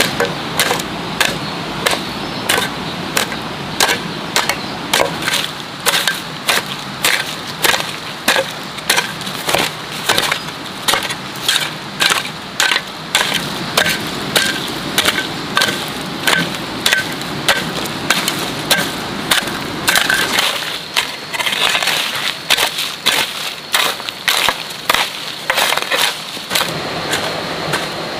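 Repeated sharp striking blows at a steady pace, about two a second, briefly less regular around twenty seconds in.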